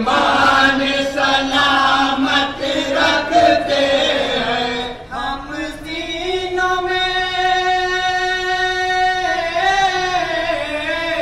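Unaccompanied singing of a naat, an Urdu devotional song in praise of the Prophet, with a melismatic vocal line that bends in pitch and then holds one long note for about three seconds in the second half.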